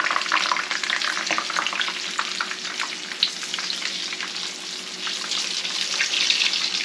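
Egg-washed cassava balls frying in hot oil in a nonstick pan: a steady sizzle dense with small pops and crackles, with a metal spoon moving the balls around the pan.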